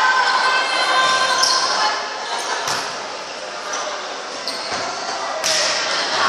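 Volleyball being struck by players' hands in a rally: a sharp smack about two and a half seconds in and a louder one near the end, over the steady chatter and shouts of spectators in a gym hall.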